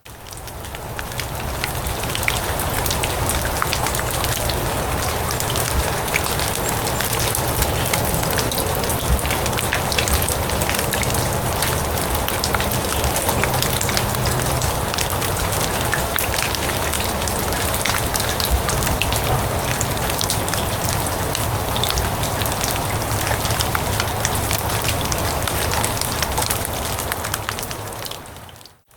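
Steady rain falling on grass and leaves: a dense hiss full of fine drop patter. It fades in over about the first second and dips away just before the end.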